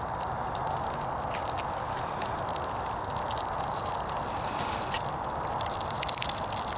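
Small wood fire burning in a portable camping stove: a steady rush with scattered light crackles and pops.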